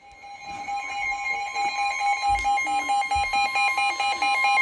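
Several weather alert radios going off together, each sounding its alarm for an incoming warning: steady alert tones with a pulsing beep joining in, all growing louder. Two low thumps come about halfway through.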